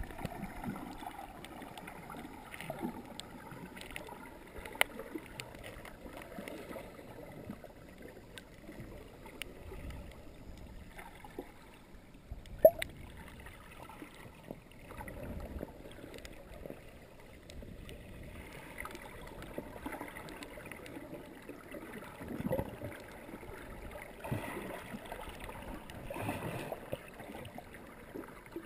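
Water moving and gurgling, heard underwater: a steady noise with scattered sharp clicks, the loudest about twelve seconds in.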